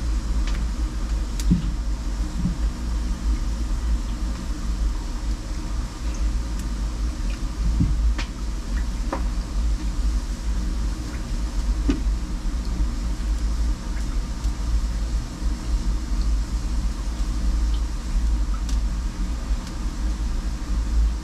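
Steady low rumble and hum, with scattered light metallic clicks and taps from an oil can's spout working at a locomotive's rear axle box oil pot.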